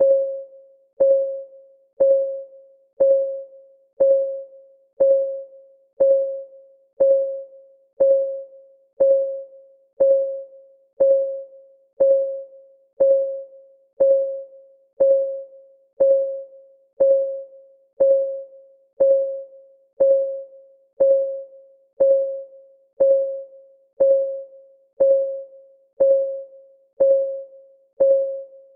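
Countdown timer's clock-ticking sound effect: one short, pitched tick every second, each fading quickly, in a steady even rhythm.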